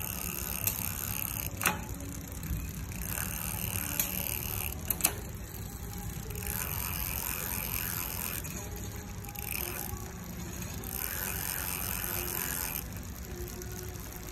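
Bicycle drivetrain running as the crank is turned on a stand: the chain runs over the rear cassette and derailleur pulleys with a steady whirr, broken by a few sharp clicks in the first five seconds as the derailleur shifts gears. The shifting is smooth.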